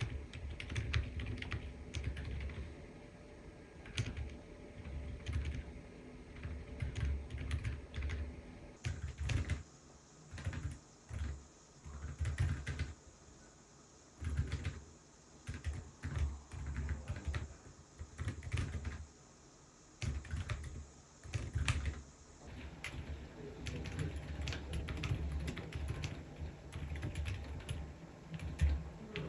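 Typing on a Corne split mechanical keyboard with Outemu Lemon V3 silent switches: quiet, dampened keystrokes in quick runs broken by short pauses.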